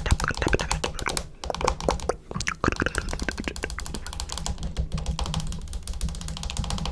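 Rapid, irregular clicks and taps, many to the second, over a low steady hum.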